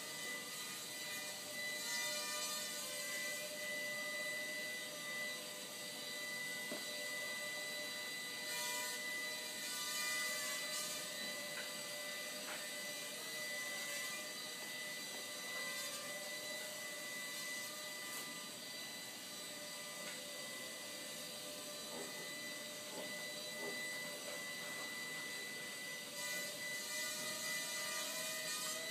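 Walkera Ladybird V2 micro quadcopter's small electric motors and propellers giving a steady whine of several tones whose pitch wavers slightly, with brief bursts of higher hiss now and then.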